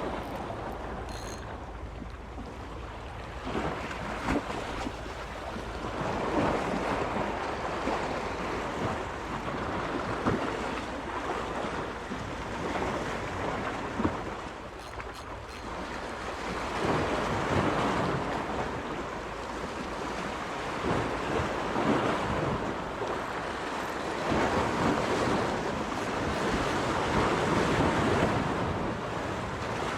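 Sea waves washing in, swelling and fading every few seconds, with wind buffeting the microphone.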